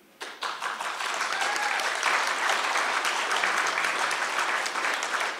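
Audience applauding steadily, dense clapping from a room full of people.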